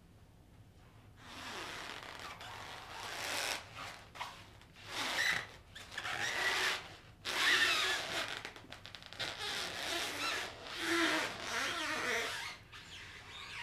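Packing foam squeaking and scraping against a tower speaker's cabinet as the speaker is rocked and walked out of its bottom foam. The noise comes in uneven bursts, starting about a second in and stopping just before the end.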